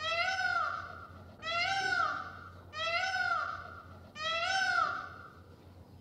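Peacock calling: four calls in a row, each about a second long, rising then falling in pitch, with a call starting every second and a half or so.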